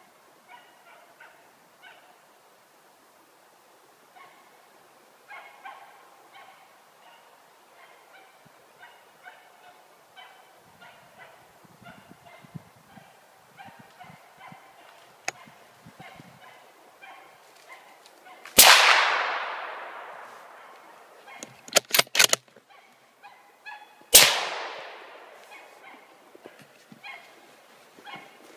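Hound barking in the distance on and off, then a rifle shot about two-thirds of the way in that echoes away for a couple of seconds, a few sharp clicks of the bolt being worked, and a second rifle shot about five and a half seconds after the first.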